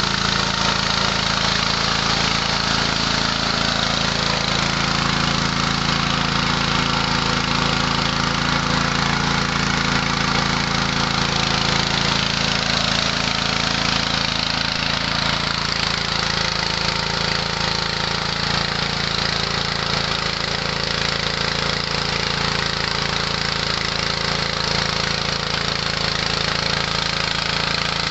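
Mini rice huller and polisher running steadily, driven by its 6.5–7 hp petrol engine: an even engine hum under a constant rushing machine noise.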